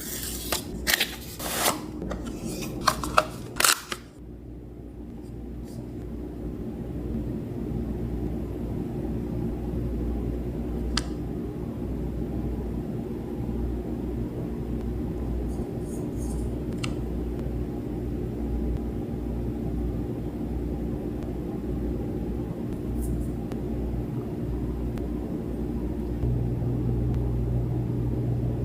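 Packaging being handled, with a cluster of sharp clicks and taps during the first four seconds. After that comes a steady low hum that slowly grows louder and steps up a little near the end.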